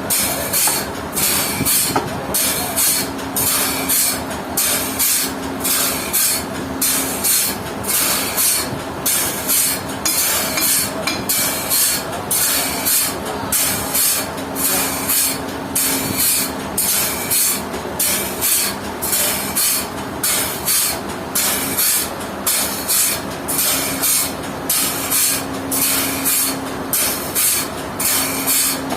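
Sawmill machinery running steadily, a loud hiss that pulses about twice a second over a faint hum.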